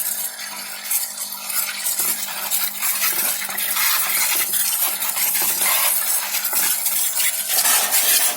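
Single-tub top-loading washing machine running, with water splashing and sloshing in the tub over a faint steady hum.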